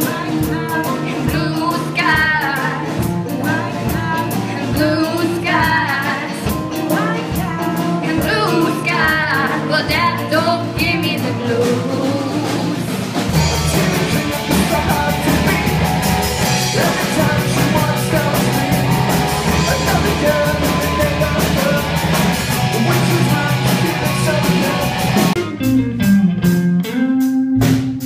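Live rock band playing with singing, electric guitars and drum kit. About halfway through, the music cuts abruptly to a different, fuller song. Near the end a sparse electric guitar part with a sliding note starts.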